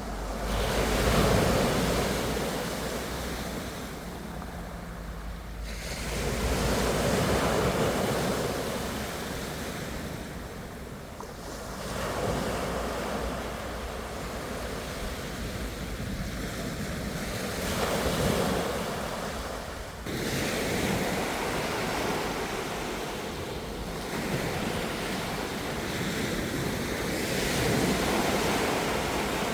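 Ocean surf: waves breaking and washing in, swelling and fading about every five to six seconds.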